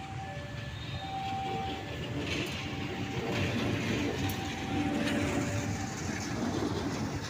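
KAI CC 201 diesel-electric locomotive passing close by, its engine running and its wheels running over the rails, growing louder about two seconds in.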